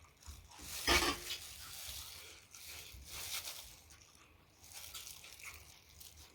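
Close-miked eating sounds: chewing and crunching in irregular bursts, the loudest about a second in.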